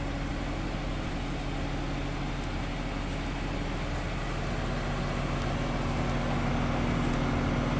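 Sugarcane harvester's diesel engine running steadily, a low hum that rises slightly in pitch and grows a little louder in the second half.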